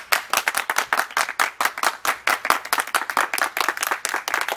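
Several people clapping their hands together, a fast, uneven run of sharp claps.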